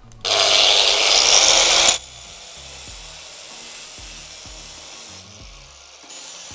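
Angle grinder with a diamond disc cutting a tile strip: a loud grinding cut for about the first two seconds, then a quieter steady run that dips and picks up again near the end. The disc's segments are smeared over from cutting an edge trim, so it is starting to cut poorly.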